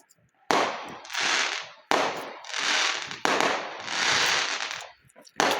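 Fireworks going off: four sharp bangs, each followed by a hissing, crackling spray that swells and dies away over about a second.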